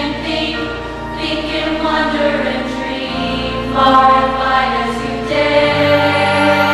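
A large chorus of young voices singing together over instrumental accompaniment in a stage musical number.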